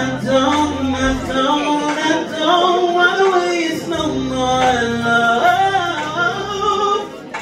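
A male vocalist singing into a handheld microphone, holding and bending long notes, with low held accompaniment notes underneath for part of the time.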